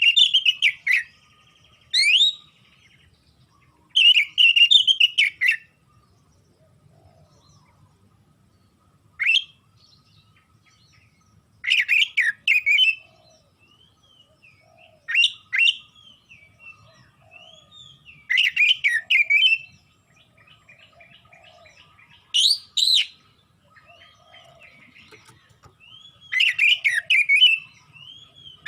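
Oriental magpie-robin (kacer) singing vigorously, in loud bursts of rapid, varied chirps and sweeping whistles about a second or two long, with short pauses between them; softer gliding whistles come in some of the gaps.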